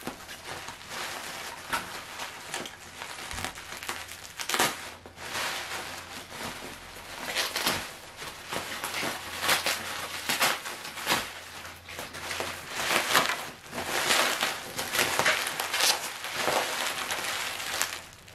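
Plastic bubble wrap crinkling and rustling as it is unrolled and pulled apart by hand, with louder crackles every couple of seconds.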